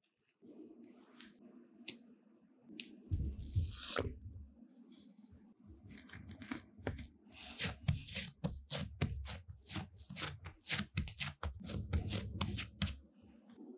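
Risen yeast bread dough being handled and pressed flat by hands on a work mat to knock the air out: sticky tearing and many quick pops and clicks, with soft low thumps of the palms.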